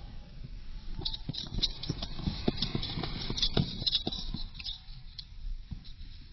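Dog walking in boots on pavement, its booted paws making a quick run of taps and scuffs that starts about a second in and thins out near the end.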